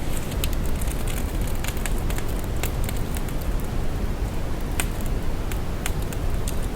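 Brown noise: a steady, deep hiss weighted heavily toward the low end, with irregular static crackles scattered through it.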